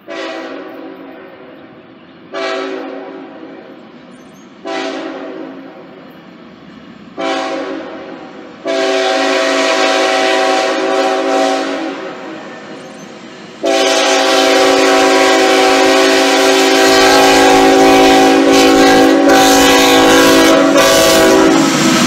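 Air horn of Norfolk Southern ET44AC locomotive No. 3672 sounding a horn show as it approaches a crossing: four short chord blasts about two seconds apart, then a longer blast that wavers, then one long held blast. The locomotive's low rumble comes in under the horn over the last several seconds as it reaches the crossing.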